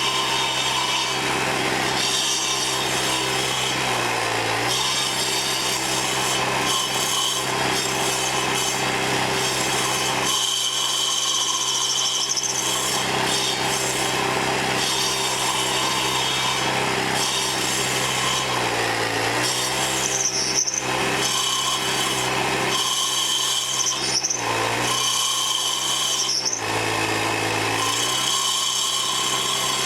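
Troy-Bilt sidewalk edger, its saw blades swapped for carbide-tipped 7 1/4-inch saw blades, grinding into a cedar stump with its small gas engine running hard. The engine's pitch drops briefly under load about four times and picks back up.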